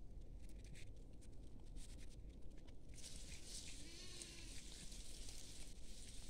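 A single short, faint bleat from the grazing flock of goats and sheep, about four seconds in, rising a little and falling. Light rustling and clicks of brush in the first half.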